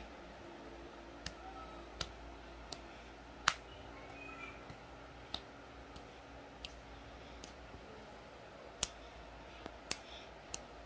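Faint, irregular sharp clicks, about ten of them scattered over several seconds, the loudest about three and a half seconds in, over a low steady hum.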